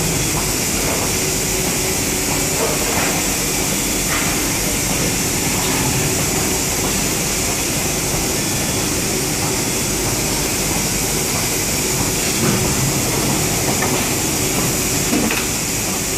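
Large 1700-ton injection moulding machine running: a steady industrial hum with a constant high hiss and a few faint clicks.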